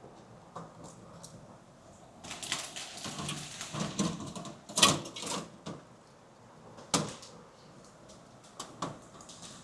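Hands handling PC parts: a busy stretch of rustling and small clatter from about two seconds in, with sharp plastic-and-metal clicks and knocks, the loudest about five seconds in and single ones near seven and nine seconds.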